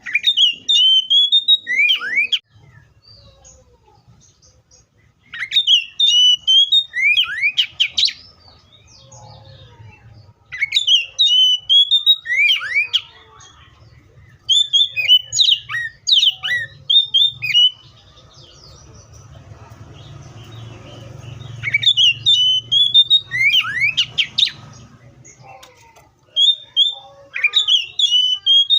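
Oriental magpie-robin singing: loud phrases of clear whistled notes that glide up and down, each phrase two to three seconds long, repeated about every five seconds, six times.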